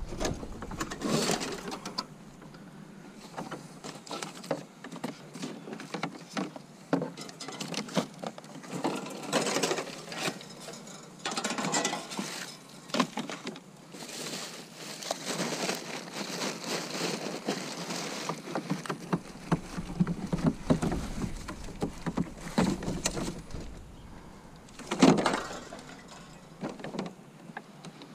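Clattering and knocking of scrap items being handled and packed into a plastic wheeled trash cart: an irregular run of knocks and rattles, with one louder knock near the end.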